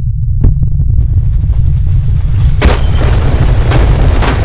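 Loud, deep rumble with a hiss that builds about a second in, and several sharp cracks in the second half.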